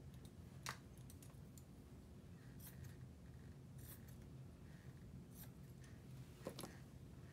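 Athletic tape pulled off the roll while an ankle is wrapped: a few faint, brief rasps of the adhesive peeling away, with a sharp click near the start and another near the end.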